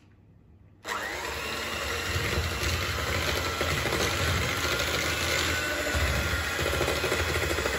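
Electric hand mixer switched on about a second in, its motor spinning up and then running steadily as the twin beaters whisk butter, sugar and egg in a mixing bowl.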